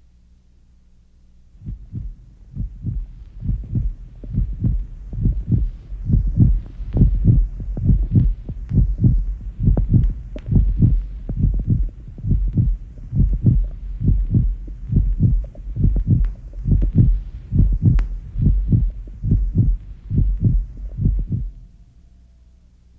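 Heartbeat sound effect: a steady rhythm of deep paired lub-dub thumps that starts about two seconds in and stops a second or so before the end, over a low hum.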